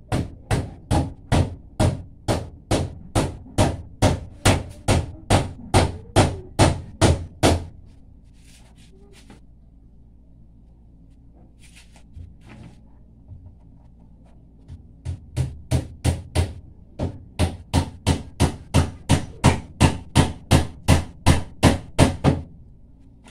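A hammer nailing the wooden boards of a concrete post form, about three even blows a second in two long runs, with a pause of several seconds between them.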